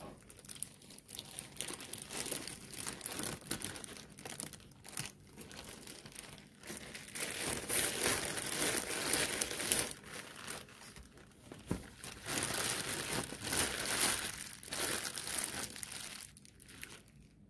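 Thin clear plastic wrapping crinkling and rustling as it is pulled off a boxed makeup brush set and scrunched up by hand, loudest in the second half, with a sharp click a little before the two-thirds mark.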